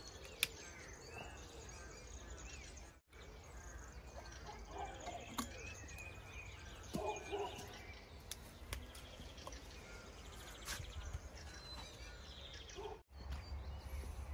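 Faint outdoor ambience: small birds chirping and singing on and off over a low, steady rumble.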